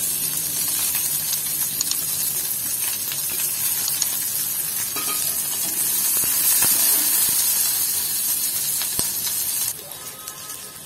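Chopped onions and curry leaves sizzling in hot oil in a kadai while they sauté, with scattered scrapes and taps of a perforated steel spatula stirring them. The sizzle drops off abruptly near the end.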